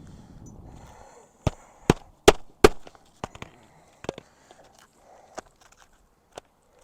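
A roofing hatchet driving a nail into asphalt shingles: four hard, sharp strikes in quick succession, then lighter, scattered taps and knocks.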